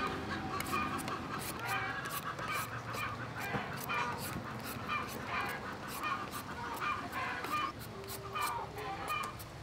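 Knife shaving the skin off a wax gourd in quick, irregular scraping strokes, with poultry calling in the background.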